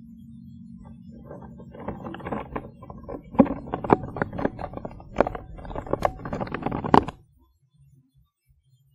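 Handling noise on a hidden field audio recorder: rubbing, scraping and sharp knocks right on the microphone, building up over a few seconds and then cutting off suddenly. The uploader attributes the disturbance, with a question mark, to a Sasquatch.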